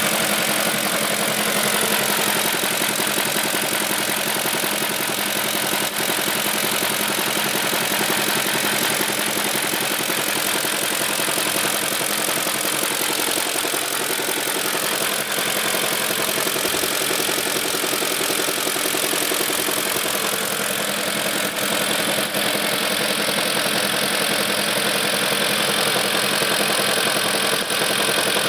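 BMW E38 740's M62 V8 engine running steadily, most likely at idle, with a knock from the engine that the owner is recording as a fault.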